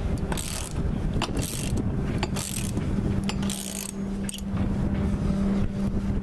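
Ratchet wrench clicking in short strokes, about once a second, as it cranks the nut on a threaded rod of a bearing press that pushes a cutlass bearing into a propeller-shaft strut. The strokes stop for the last two seconds, and a steady low hum runs beneath.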